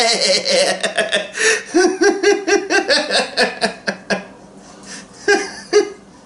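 A man laughing hard after a cheer, in a quick run of short "ha" bursts, about four a second, that dies away about four seconds in. Two short chuckles follow near the end.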